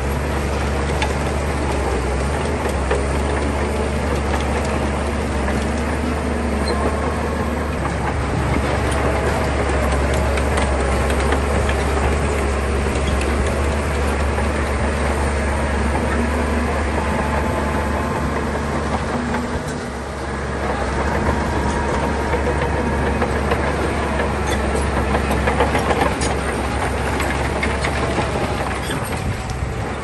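Heavy diesel earthmoving machinery working: a steady, deep engine drone with dense clattering and grinding over it, easing briefly about two-thirds of the way through.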